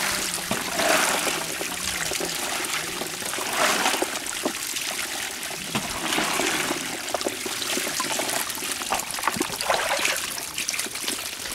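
Water gushing and splashing out of a plastic-lined outlet in a mud bank, carrying a mass of small puti fish, with many small splashes and patters in the flow.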